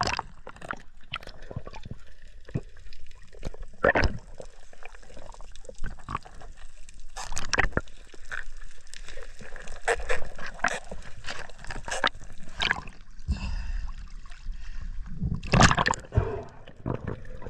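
Underwater sound: gurgling water and bubbles with scattered sharp clicks and knocks, and a louder rush of bubbles near the end.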